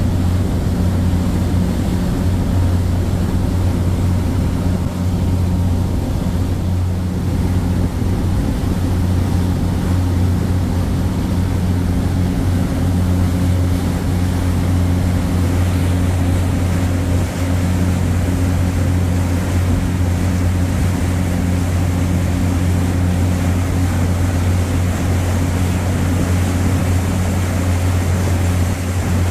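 A passenger ferry's diesel engines running steadily under way, a deep even hum, with the rush of water from the propeller wake behind the stern.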